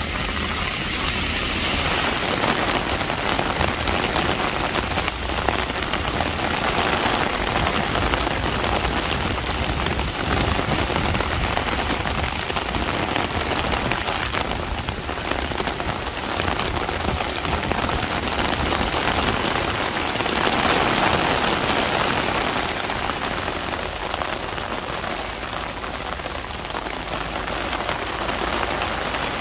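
Heavy rain pouring onto paved streets, a steady even hiss with no let-up.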